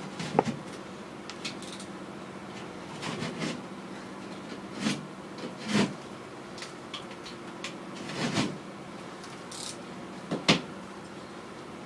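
Hand work on a pipe in an opened ceiling: about six separate knocks and clunks, irregularly spaced, over a steady low hum.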